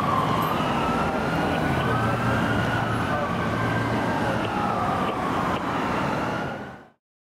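Sirens of a fire department rescue ambulance and a private ambulance wailing together, their slow rising and falling tones overlapping out of step, over traffic noise, as the vehicles drive away on an emergency run. The sound fades out abruptly near the end.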